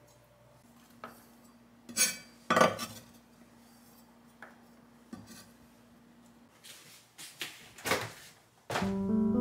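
Dishes and metal utensils clinking and knocking, a few separate strokes with the loudest pair about two to two and a half seconds in. Background music starts near the end.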